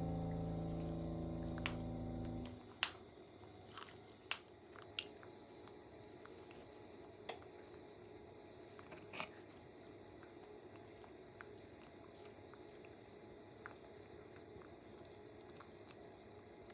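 Indian star tortoises biting and chewing leafy greens: faint, irregular small crunches and clicks. Background music is the loudest sound at first and stops about two and a half seconds in.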